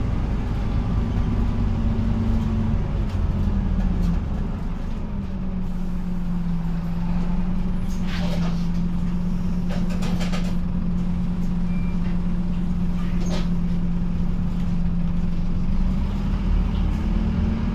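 Scania OmniCity bus's diesel engine heard from inside the cabin, dropping to a steady idle as the bus stands at a stop, with a few short sharp air hisses from the brakes or doors in the middle. The engine note climbs again near the end as the bus pulls away.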